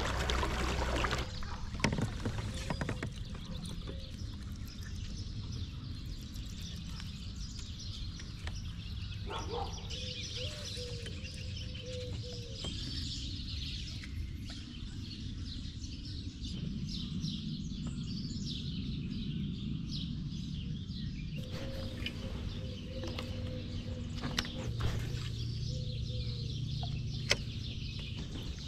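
Birds calling and chirping, with occasional faint clicks and knocks.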